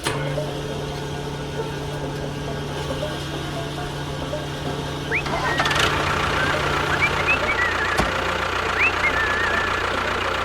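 A small motor or engine running steadily with a low hum, which drops out about three-quarters of the way through. High chirping glides come in over the second half, and there is one sharp click near the end.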